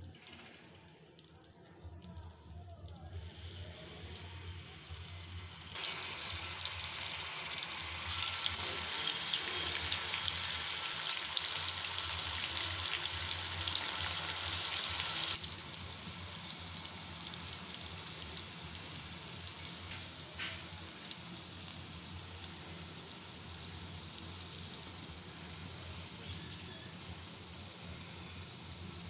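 Hot oil sizzling in a wok as ginger paste and then ground spices fry in it: a steady hiss that grows louder over the first several seconds, stays loudest until about halfway, then drops to a lower, even sizzle. A low steady hum runs underneath.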